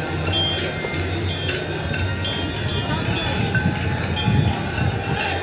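Many hand bells ringing in worship, struck irregularly with overlapping strikes, over the voices of a large crowd and a steady low hum.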